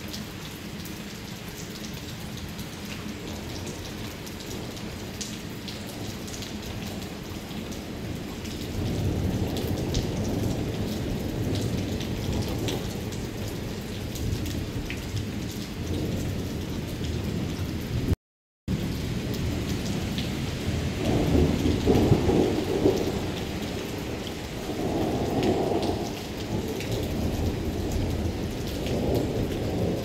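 Rain falling steadily, with single drops heard, under a thunderstorm. Low rolls of thunder swell from about nine seconds in, and louder rumbles come past the middle and again near the end. The sound cuts out for a moment just past halfway.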